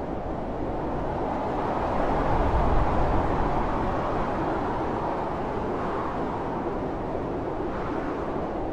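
Blizzard wind blowing steadily, a deep low rush of wind and snow, swelling into a stronger gust about two to three seconds in.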